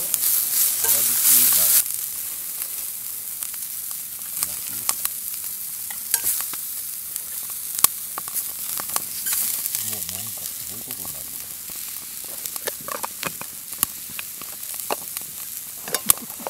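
Food sizzling as it fries in a pan and is stirred, a utensil scraping and clicking against the pan. The sizzle is louder for the first couple of seconds.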